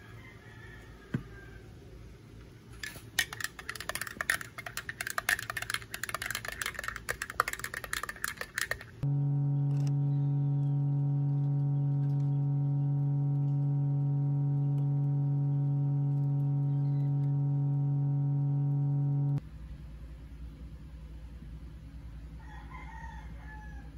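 Rapid clicking of laptop keyboard keys during touch-typing practice, lasting about six seconds. Then a loud, steady low hum with overtones starts and stops abruptly and lasts about ten seconds.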